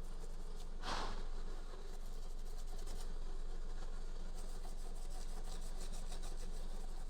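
Hands rubbing and working a leather steering wheel cover: one brief, louder scrape about a second in, then fine, rapid scratchy rubbing from about halfway, over a steady low hum.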